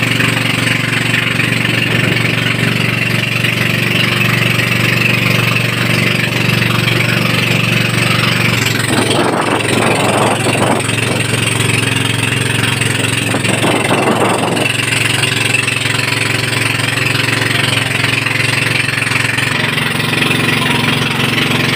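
Small outrigger boat's motor running steadily while the boat is underway, its note shifting slightly about eight seconds in.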